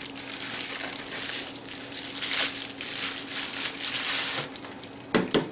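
Plastic bubble wrap crinkling and rustling as it is handled and pulled off a camera battery charger. The crackling goes on for about four seconds, then dies down.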